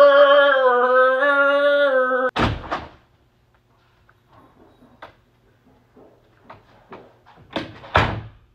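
A loud vocal animal impression: a man's voice holding one long note, cut off about two seconds in by a door banging open. A few faint knocks and shuffles follow, then a door bangs again near the end.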